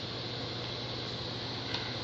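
Steady room background noise: a low hum under an even hiss, with one faint click near the end.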